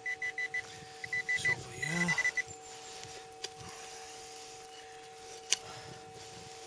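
Minelab Safari metal detector giving its high-pitched target tone as short rapid beeps in three bursts, signalling a buried copper pipe. A sharp click follows about five and a half seconds in.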